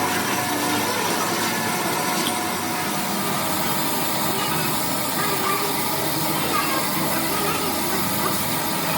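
Steady mechanical noise, even and unbroken, with faint voices in the background.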